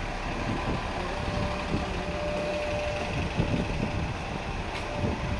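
A motor vehicle running, with a steady whine that holds for several seconds, over a constant rush of wind and street noise.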